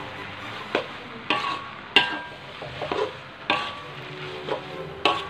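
Metal spatula scraping and clanking against a metal wok as fried flat rice noodles are tossed, over a steady sizzle. The strokes come irregularly, about one or two a second, the sharpest about two seconds in.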